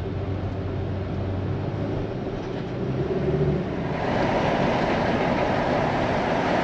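Engine and road noise inside a moving car's cabin: a steady low drone that gives way about four seconds in to a louder, hissier rush of wind and tyre noise.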